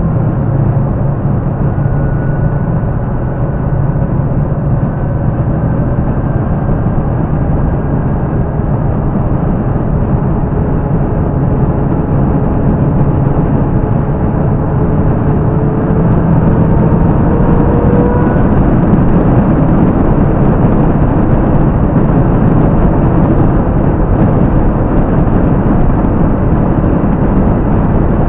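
1967 Chevrolet Camaro's engine running steadily at cruising speed along with tyre and road noise, heard from inside the car. About halfway through, a faint whine slowly rises in pitch, and the sound gets a little louder after that.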